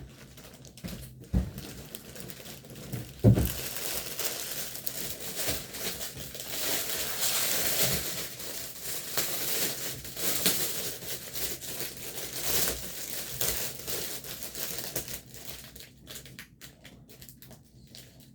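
Packaging crinkling as it is handled and opened, preceded by a couple of short knocks, the louder one about three seconds in; the crinkling dies away near the end.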